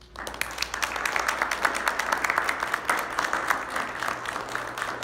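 Audience applauding: many people clapping. It starts suddenly and keeps on, easing a little near the end.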